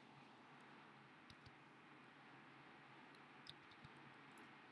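Near silence with a few faint computer mouse clicks, two pairs about a second and a half and three and a half seconds in.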